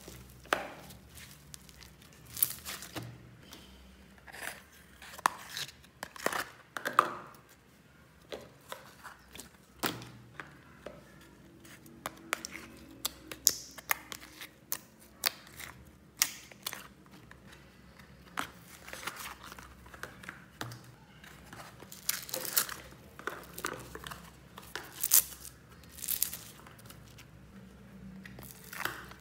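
Slime being stretched, squeezed and pressed by hand, giving irregular sharp sticky pops and crackles.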